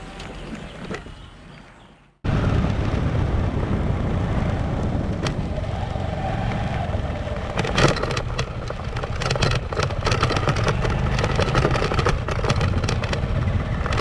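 Motorcycle being ridden, its engine running steadily with wind noise on the bike-mounted camera's microphone. About two seconds in, the sound cuts out and comes back much louder. From about halfway on, it is dotted with many short clicks and knocks.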